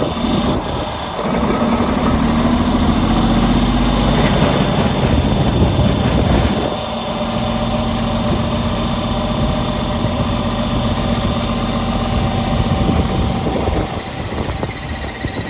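A tub grinder's engine running steadily under a steady high whine. It grows louder about a second in, then drops back a little about seven seconds in and settles.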